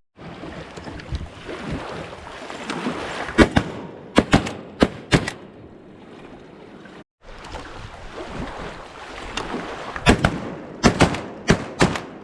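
Two volleys of shotgun fire from several hunters shooting at a flock of bluebills. Each volley is about five or six quick, loud shots, the first a few seconds in and the second near the end, over steady wind and water noise.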